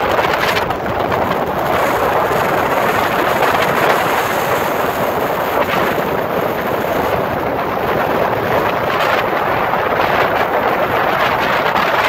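Strong wind blowing across open water and buffeting the microphone, mixed with the rush of waves breaking on a stony shore. Loud and steady throughout, with no letup.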